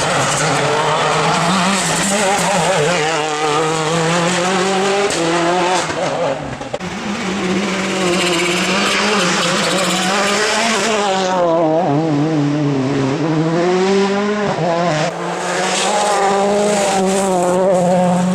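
World Rally Car with a 1.6-litre turbocharged four-cylinder engine being driven hard along a rally stage, its engine note repeatedly rising and falling as it revs through gear changes.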